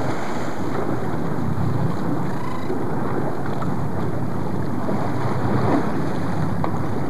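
Steady wind noise on the microphone over the sound of a boat and the sea washing against its side.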